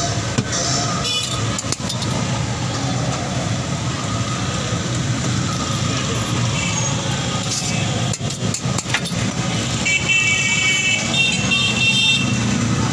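Busy street traffic running steadily, with vehicle horns honking about ten seconds in.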